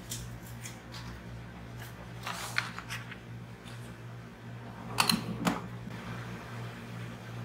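A Teflon sheet handled over a T-shirt on a heat press: soft rustles and a few sharp crinkles, the loudest pair about five seconds in, over a steady low hum.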